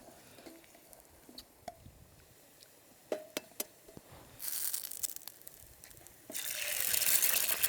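A few sharp taps, then hot oil in a cast iron pan hissing, rising to a loud steady sizzle about six seconds in as an egg is dropped in: the sign that the pan is on high heat.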